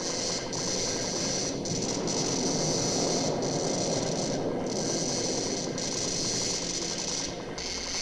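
Frankenstein laboratory effects from a 1970s horror sound-effects record: a dense, steady crackling and rattling electrical noise, with a hissing layer that cuts out briefly every second or so.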